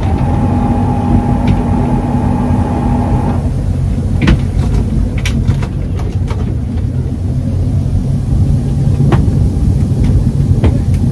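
Chaparral Signature 310 express cruiser's engines running at low speed as the boat maneuvers out of its slip: a steady low rumble, with a steady whine for the first three seconds or so and a few sharp knocks later on.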